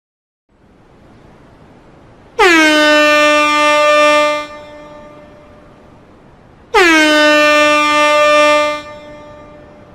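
Air horn blown twice, each blast about two seconds long, starting with a quick drop in pitch and then holding one steady, brassy tone, over a faint background hiss.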